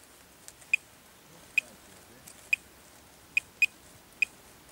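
Minelab Pro-Find 25 pinpointer probe giving about six short, high-pitched beeps at irregular intervals as it is passed over a soil plug: a weak, intermittent signal on a buried target.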